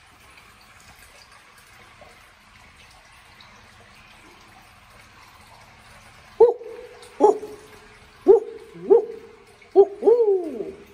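A run of about six loud hoots, the first starting about six seconds in, each starting sharply. The last is drawn out and falls in pitch.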